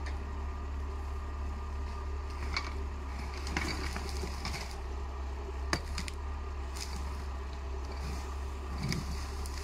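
Valtra 8550 tractor's diesel engine running steadily while its forestry crane loads branches, with brushwood cracking and snapping several times as the grapple handles it.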